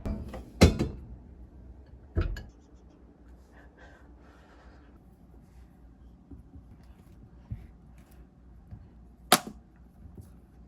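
A few sharp knocks or clicks, spaced well apart, with faint scattered handling sounds between them.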